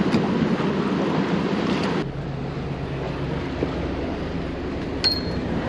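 Loud, even rush of water pouring out through lock gates as the lock empties. About two seconds in it cuts to a quieter, steady low boat-engine hum, with a single sharp click near the end.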